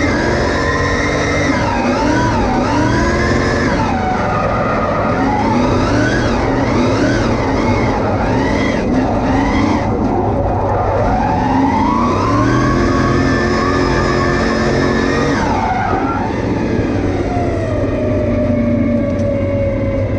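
Nissan S15 Silvia drift car's Porsche V8 engine heard from inside the cockpit, revving up and down repeatedly through a drift run. It climbs and holds high revs for a few seconds past the middle, then winds down steadily toward the end.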